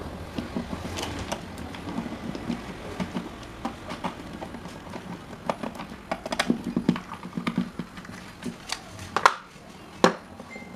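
Screwdriver unscrewing and opening an electric fan's plastic switch box: irregular light clicks and taps of metal on plastic, with a couple of sharper clacks near the end as the cover comes off and the tool is put down.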